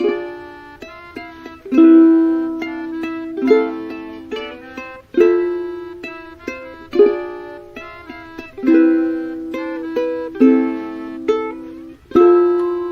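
Background music played on a plucked string instrument: ringing notes and chords that fade after each pluck, with a strong stroke about every second and a half to two seconds in a calm, steady rhythm.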